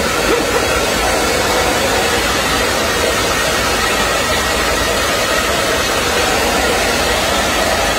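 Handheld hair dryer running steadily, blowing on a baby monkey's wet fur: an even rush of air with a faint motor hum.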